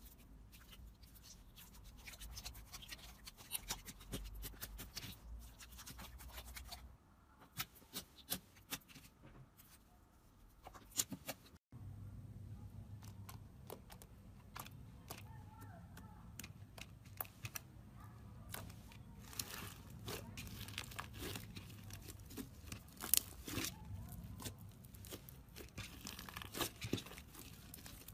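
Slime being squeezed, poked and stretched by hand, giving a steady run of small sticky clicks and crackling pops, with a brief dropout about twelve seconds in.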